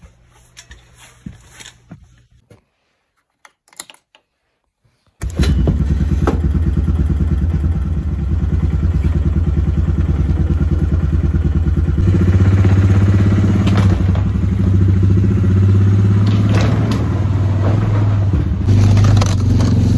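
ATV engine starts suddenly about five seconds in and runs steadily with a fast, even pulse, getting louder from about halfway through. Before it there are a few faint clicks, then near silence.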